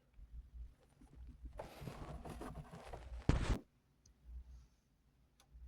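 Soft rustling and scraping of objects being handled for about two seconds, ending in a brief louder scrape, then quiet.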